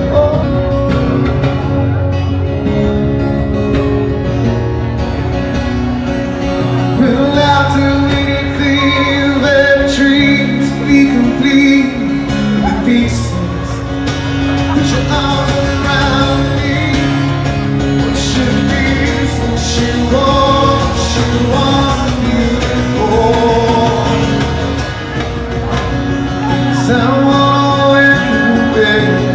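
Live acoustic duo performing a cover song: a male voice singing over acoustic guitar.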